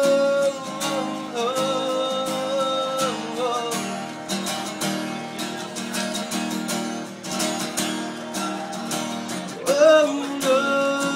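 Song with strummed acoustic guitar and a singing voice holding long notes.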